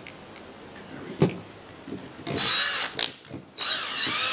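Cordless drill/driver driving a coarse-threaded shell screw into a rubber Edison plug: a sharp knock about a second in, then two runs of the motor, a short one and, after a brief pause, a longer one running on through the end.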